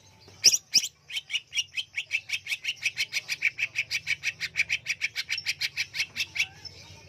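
Greater green leafbird (cucak hijau) singing in full 'on-fire' form, the vigorous song keepers prize: two loud sharp notes, then a fast run of about thirty evenly repeated notes, some five or six a second, that stops abruptly a little over six seconds in.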